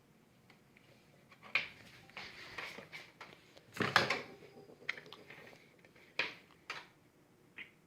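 Scattered knocks and short clattering noises a second or two apart, the loudest about four seconds in, like small objects being moved around in a small room.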